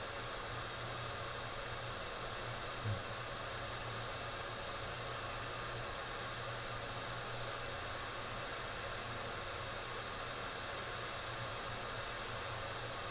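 Hot air rework station blowing a steady hiss of air while reflowing a NAND flash chip onto a logic board, with a faint tap about three seconds in.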